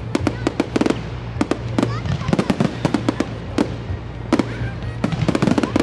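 Fireworks going off in a rapid, irregular run of sharp bangs and crackles, several a second.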